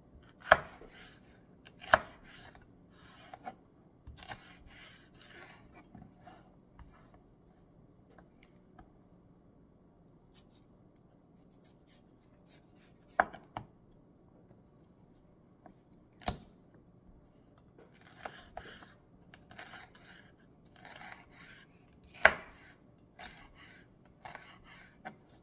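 Chef's knife slicing a red bell pepper into strips on a wooden cutting board: crisp cuts through the pepper flesh, with about five sharp knocks of the blade on the board, and a quiet pause in the middle.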